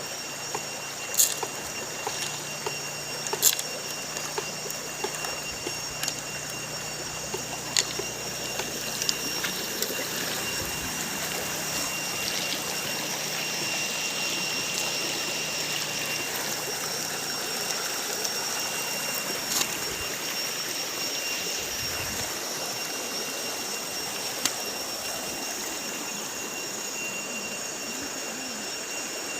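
Steady rushing noise with faint steady high tones and a few sharp clicks scattered through it.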